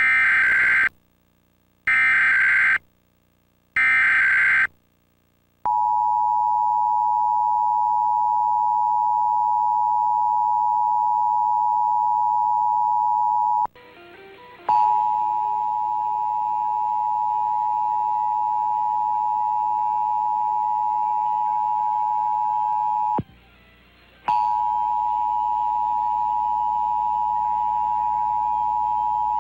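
Emergency Alert System SAME header, three short bursts of data tones about a second apart, followed by the EAS two-tone attention signal (853 and 960 Hz) sounding steadily. The attention tone breaks off briefly about 14 and 23 seconds in and starts again each time, the mark of a duplicate alert activation coming through the cable box.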